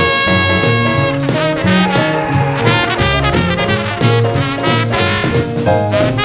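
Live rhythm-and-blues band playing an instrumental break: a brass lead holds one long high note at the start, then plays a moving line over the rhythm section.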